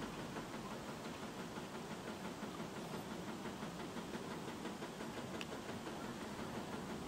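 Faint steady hiss of quiet room tone, with a couple of soft ticks.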